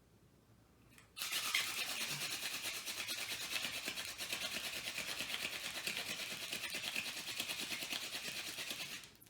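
Tall ironweed hand-drill spindle spun very fast back and forth in the notch of a white pine fireboard: a steady, rapid, dry rasping of wood on wood that starts about a second in and stops abruptly near the end. This is the friction that grinds and heats wood dust in the notch to make an ember.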